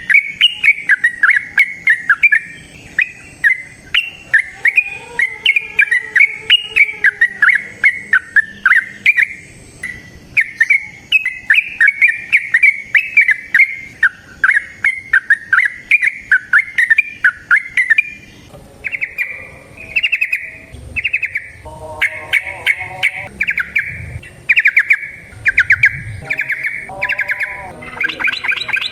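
Yellow-vented bulbul (trucukan) singing: fast, bubbly chattering phrases follow one another closely. About two-thirds of the way through, the song changes to a run of shorter, evenly spaced notes, with some lower calls mixed in near the end.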